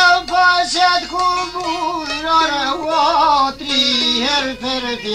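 Albanian folk song: a male voice singing a long, wavering, ornamented line with vibrato over plucked long-necked lutes, in several held phrases.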